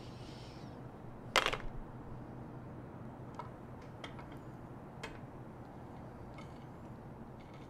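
Small objects being handled on a cluttered tabletop: one sharp knock about a second in, then a handful of light clicks and taps as things are picked up and moved, over a steady low hum.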